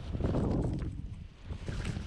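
Airflow buffeting the microphone during paraglider flight: a low wind rumble that swells in the first second and eases off about a second and a half in.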